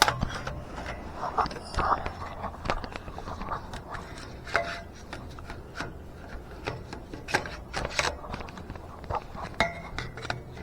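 Scattered light clicks, knocks and clatter of tools and parts being handled under a car, with a few brief mutterings.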